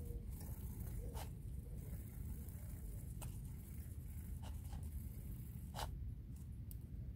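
Scattered small clicks and rustles of baby Roborovski dwarf hamsters shifting and nibbling in wood-shaving bedding, over a steady low hum.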